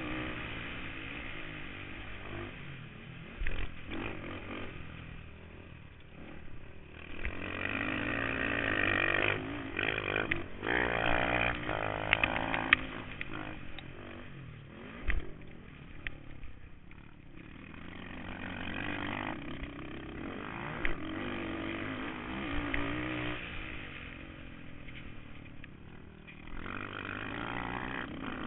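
Kawasaki KFX 450R quad's single-cylinder four-stroke engine racing over a rough dirt motocross track, revving up and dropping back over and over as the rider works the throttle and gears. A few sharp thumps from the quad hitting bumps come through.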